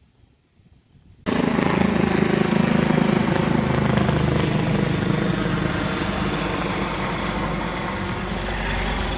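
Helicopter passing overhead. Its sound cuts in suddenly about a second in, then the rotor and engine run steadily, slowly dropping in pitch and fading a little.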